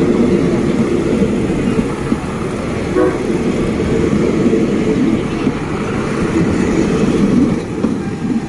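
State Railway of Thailand THN-class diesel railcar train rolling slowly past along the platform: the underfloor diesel engines running with the wheels clacking over the rail joints, one sharper click about three seconds in. The noise drops off near the end as the last car goes by.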